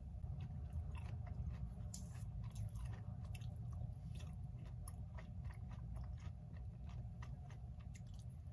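Faint close-up wet clicks and crackles of a Seogwipo mandarin being pulled apart and eaten, scattered irregularly over a steady low hum.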